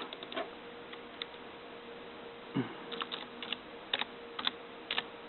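Computer keyboard keys clicking in short, irregular runs, sparse at first and then several in quick succession, over a faint steady hum.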